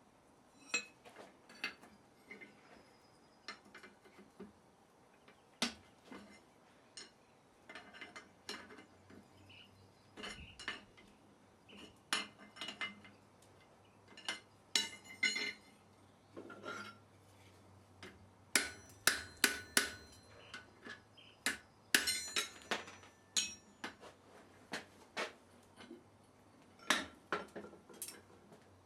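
Irregular light hammer taps and metal clinks, a blacksmith's hammer working steel on an anvil, with some strikes ringing briefly. The blows come thickest about two-thirds of the way through.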